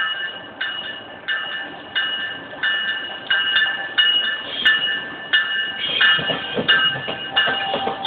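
A GO Transit commuter train's warning bell ringing steadily, about one and a half strikes a second. From about six seconds in, the rumble and clatter of the train's wheels over the trackwork grows beneath it as the train draws near.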